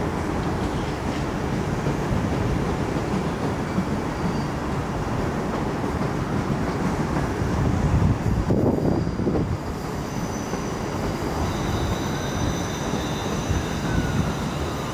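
Class 350 Siemens Desiro electric multiple unit pulling out of the station: a steady rumble of wheels on rail, loudest about eight to nine and a half seconds in. From about ten seconds in, thin high-pitched squeals sound over the rumble.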